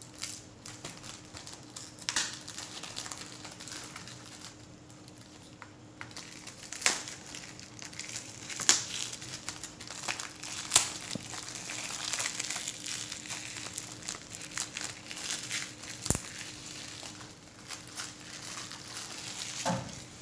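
Clear plastic shrink-wrap being torn and peeled off a Blu-ray case by hand, crinkling continuously with frequent sharp crackles.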